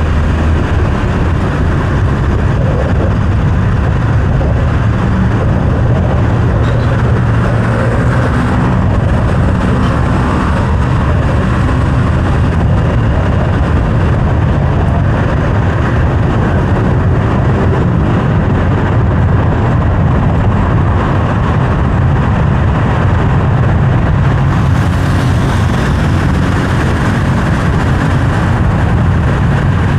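A car on the move: a steady low rumble of engine and road noise, even and unbroken.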